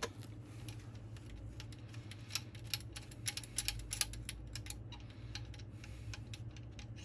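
Quick, irregular light clicks and taps of small steel parts being handled on a cylinder head's rocker shaft assembly, over a steady low hum.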